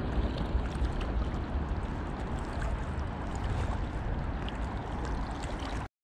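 Wind buffeting the microphone: a steady rumbling noise that cuts off suddenly near the end.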